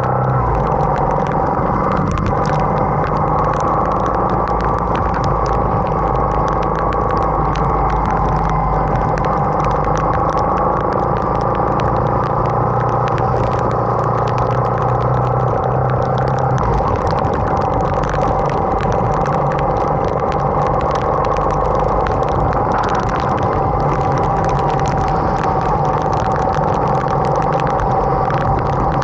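Motorcycle engine running steadily as the bike rides through heavy rain on a flooded road, with many fine ticks of raindrops and spray throughout.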